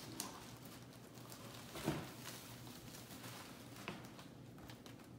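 Faint rustling and crinkling of ribbon being handled and folded into a small bow by hand, with a few soft clicks and taps, the sharpest about two seconds in.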